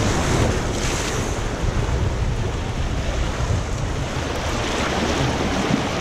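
Turbulent white water rushing and splashing down a water-park wild-river channel, right at the microphone at water level, with a steady low rumble.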